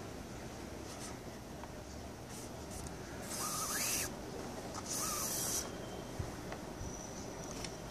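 Nylon paracord pulled through a tight weave twice, each pull a short sliding sound lasting well under a second, with a faint squeak of cord on cord.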